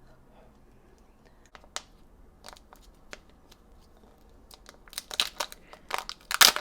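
Packaging wrapper being crinkled and torn by hand: a few scattered rustles at first, then a busy run of crackling and tearing in the last couple of seconds.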